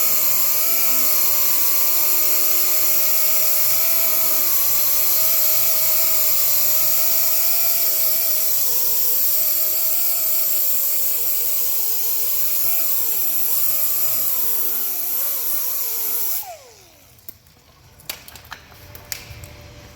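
Handheld power tool running with a high whine over hiss, its pitch wavering and dipping under load. About three-quarters of the way through it is switched off and spins down with a falling whine, followed by a few clicks.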